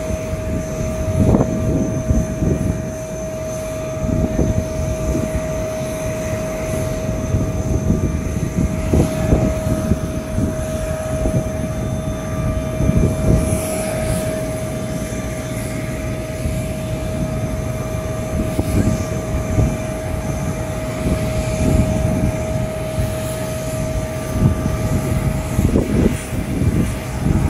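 Airbus A350-1000 jet airliner sounding on the apron: a steady high whine held throughout over a loud, uneven low rumble.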